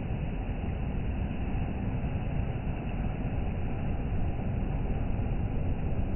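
Steady low rumbling noise of sea surf and wind buffeting the microphone.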